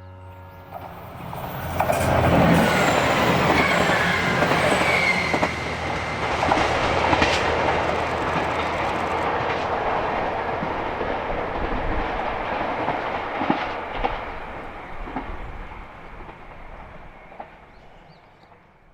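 JR Shikoku 2000 series diesel train running by: the sound swells about two seconds in, wheels clatter over rail joints with a few brief squeals, then it fades away toward the end.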